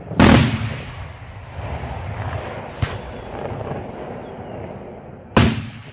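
Aerial firework shells exploding: a loud bang just after the start that rumbles away in echoes, a smaller sharp crack near the middle, and another loud bang near the end.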